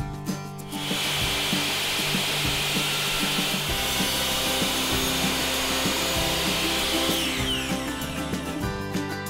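Power saw starting up and cutting through hardwood frame molding, trimming it to length, then spinning down with a falling whine near the end.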